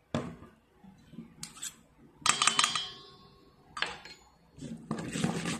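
Metal spoon clinking and scraping against a stainless steel mixing bowl while stirring a minced-pork mixture. There are scattered clicks and scrapes, and a loud clink a little past two seconds in rings on briefly.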